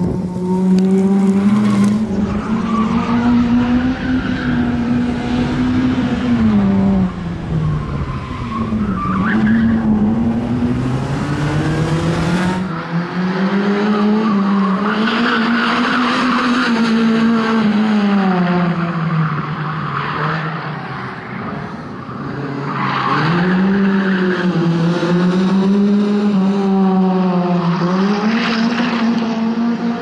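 Suzuki Swift rally car's engine revving hard, its pitch climbing and dropping again and again through gear changes and corners, with tyres squealing as the car slides around the course.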